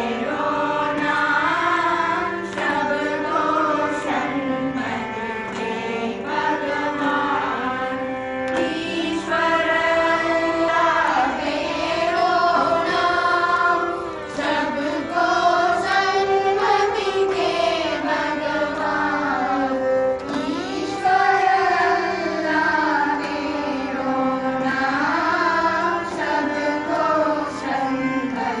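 A group of children and adults singing a Carnatic devotional song together, accompanied by a violin. The melody glides and ornaments over a steady drone.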